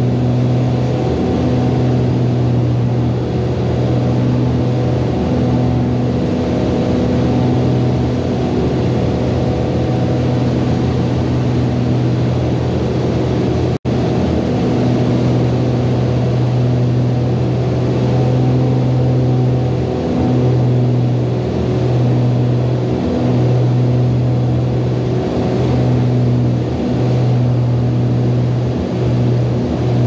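Beechcraft Baron's twin piston engines and propellers droning steadily in flight, heard inside the cabin: a loud low hum with a wavering beat in the second half. The sound cuts out for an instant about 14 seconds in.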